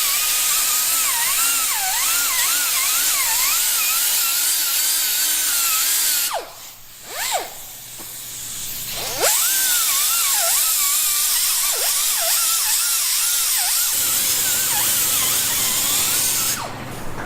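Electric drill spinning a corrosion-cleaning tool against a wheel's mating surface. Its whine dips and rises in pitch as it is pressed on and eased off, and it stops for about three seconds midway before starting again.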